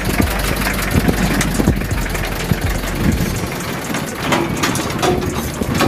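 Land Rover Defender's engine running at low revs as it crawls over rocky ground, with scattered short knocks; the low rumble eases about three and a half seconds in.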